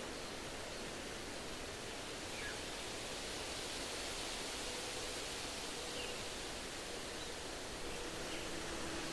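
Steady wind rustling through tree foliage, with a few faint, short bird chirps.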